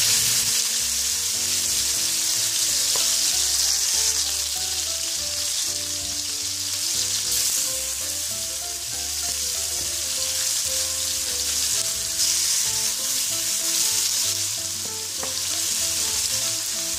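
Spiced beef cubes sizzling in very hot oil in a non-stick pan, a steady high hiss, while a spatula pushes and spreads the pieces around the pan.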